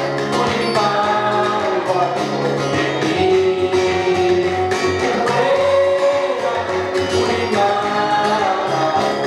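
Man singing a Kinyarwanda gospel song over strummed acoustic guitar, with a steady percussion beat underneath.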